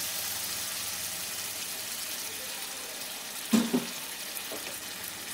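Water poured into hot, oil-released masala in a pan, the sauce sizzling steadily and slowly quietening as the water settles in. A brief clunk about three and a half seconds in.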